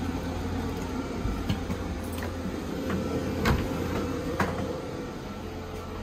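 Steady low hum with a faint steady tone from a 12-volt, 12,000 BTU marine DC air conditioner running and blowing through the cabin vents. A few sharp clicks sound in the middle.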